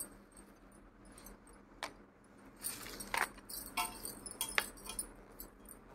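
Faint rustling with a few separate light clicks and clinks as a clear plastic box is handled among shredded-paper packing.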